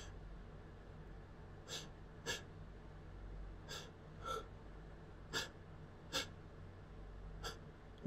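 A person's short, sharp sniffs and catching breaths, about seven of them, mostly in pairs, as a sneeze builds up.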